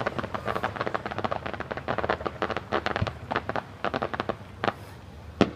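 Fireworks crackling: a dense run of rapid small pops from crackling stars, with a low boom about three seconds in and two sharp bangs near the end, the last the loudest.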